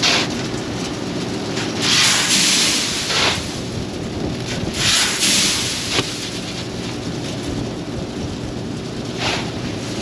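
A shovel scraping along a combine's roof and pushing shelled corn kernels off it, the kernels sliding and pouring off in rushing surges three times. Under it runs a steady low machine hum.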